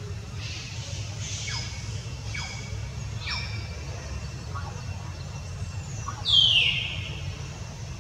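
Several short, high-pitched animal calls that drop sharply in pitch, then about six seconds in a louder, longer squeal sliding downward, over a steady low rumble.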